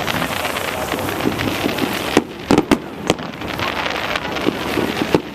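Fireworks display: a dense, steady crackling noise, broken a little over two seconds in by a quick run of sharp bangs, then the steady noise again.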